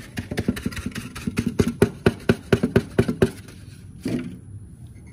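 A rapid, even series of sharp taps, about five a second, that stops a little after three seconds in, followed by one more thump about a second later.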